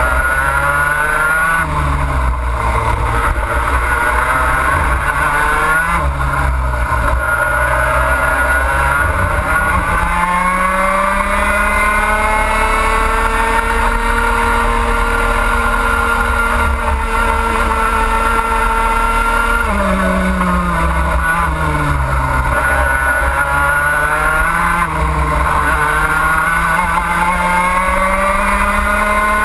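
Two-stroke racing kart engine at full race pace, heard onboard, its pitch rising and falling through the corners. It climbs and holds high along a long straight from about ten seconds in, then drops sharply about twenty seconds in before climbing again.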